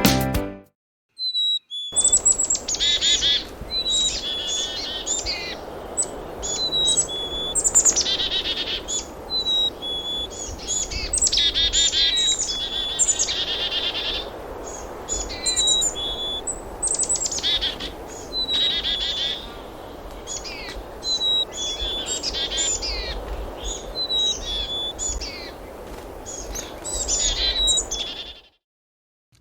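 A bird calling over and over, starting about two seconds in: quick downward-sweeping high notes mixed with short level whistled notes, over a steady background hiss. It stops about a second before the end.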